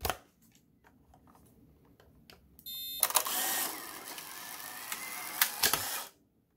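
Polaroid Spectra AF instant camera taking a picture: the shutter fires about two and a half seconds in, then the camera's film-ejection motor runs steadily for about three seconds, driving the print out through the rollers, and stops abruptly. It runs on a nearly dead battery pack while pushing a 600-type film cartridge.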